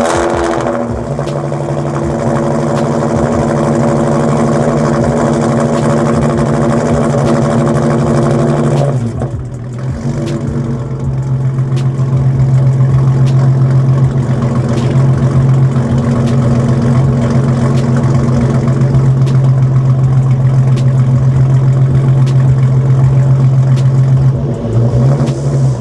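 Hyundai Genesis Coupe 3.8 V6 engine idling just after start-up, heard at the exhaust. The idle pitch drops to a lower, steady level about nine seconds in, then rises briefly near the end.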